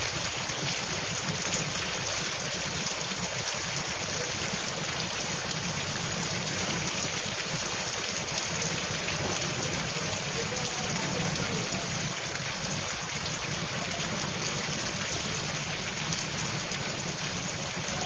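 Heavy rain pouring steadily onto a waterlogged road and puddles, an even hiss of falling water.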